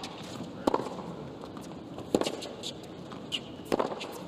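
Tennis ball struck by rackets in a baseline rally: three sharp hits, about a second and a half apart, alternating between the two players.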